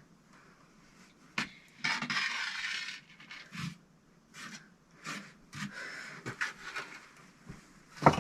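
Hand work on bricks: a sharp knock, then a rasping scrape lasting about a second, followed by scattered lighter knocks and scrapes and a loud knock near the end.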